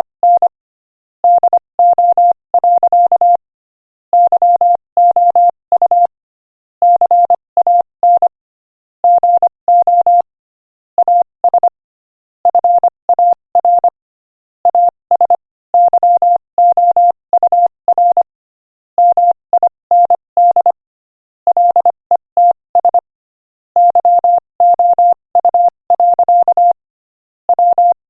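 Morse code sent as a single-pitch tone keyed on and off at 25 words per minute: quick short dots and longer dashes, with short silences between letters and longer ones between words.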